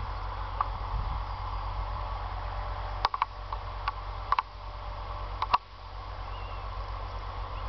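Wind rumbling on the microphone, with scattered sharp metallic clicks, loudest in small clusters about three and five and a half seconds in.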